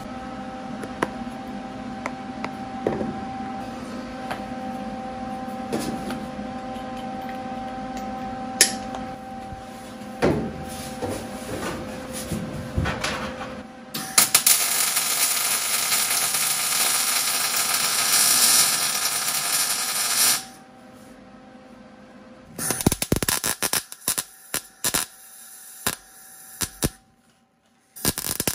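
MIG wire-feed welder arc crackling in one continuous weld of about six seconds, starting about halfway in. Near the end come several short tack-weld bursts, fixing a steel accelerator pedal hinge bracket to the sheet-metal floor. Before the welding there is a steady hum with a few scattered taps.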